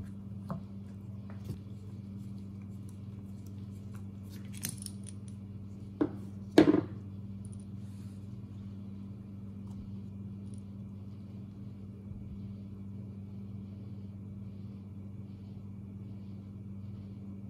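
Small metal clicks, clinks and knocks from a chainsaw carburetor and small tools being handled on a wooden workbench as the carburetor's cover is taken off. The sharpest knock comes about six and a half seconds in, and after that only a steady low hum remains.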